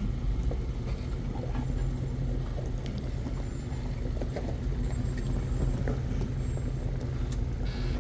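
Jeep engine running steadily with a low drone while driving, with scattered light knocks and rattles.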